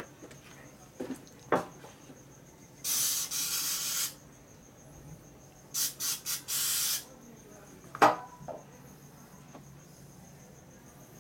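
Compressed-air blow gun blasting: one blast of about a second, then three quick short blasts and a longer one, blowing out a disassembled motorcycle brake caliper. A few sharp metal clinks of parts being handled come before and after, the loudest a little after the blasts.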